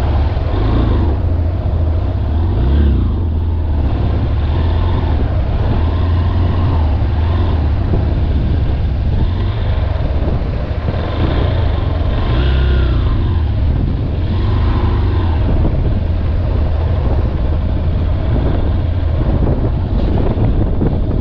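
Motorcycle engine, the small single-cylinder of a Honda Hornet 2.0, running steadily at low speed while riding a rough gravel track, with wind on the helmet microphone.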